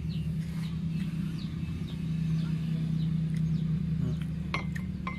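A steady low hum, with faint short chirps that fall in pitch, typical of small birds, and two light clinks near the end.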